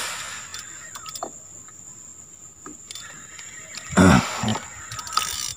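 Steady high-pitched insect drone, typical of crickets or cicadas, with faint scattered clicks from the spinning rod and reel being handled. About four seconds in comes a short, loud burst of a man's voice.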